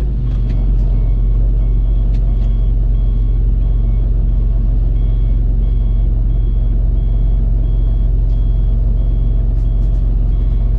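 A vehicle engine idling steadily, heard from inside the cabin, with a repeating electronic warning beep of about two beeps a second.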